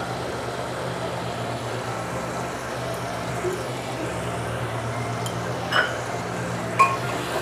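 Steady low hum of a stovetop kitchen as food cooks in an open aluminium pressure cooker, with two sharp metal clinks near the end, a utensil against the pot.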